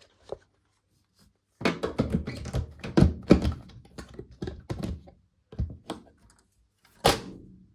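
Clattering knocks and clunks of tumble dryer parts being handled, a quick run of them for a few seconds, then one loud thunk about seven seconds in.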